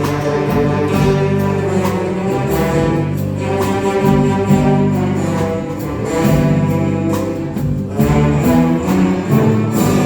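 Orchestra playing, with bowed low strings holding sustained chords that change every second or so.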